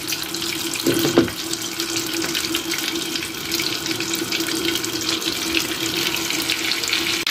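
Butter sizzling in a hot frying pan: a steady hiss with many small crackles and pops, over a steady low hum.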